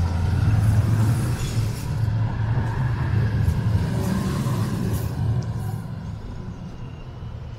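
Amsterdam street tram rumbling past, a loud low rumble that fades away over the last couple of seconds.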